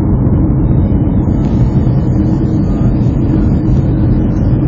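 Loud, steady rumble inside an airliner cabin as the jet rolls along the runway: engine noise and wheel rumble, with a faint hiss joining in about a second and a half in.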